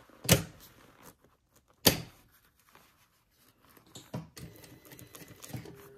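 Two sharp clicks about a second and a half apart, then soft rustling and small ticks as jacket lining fabric is handled and positioned at an industrial sewing machine.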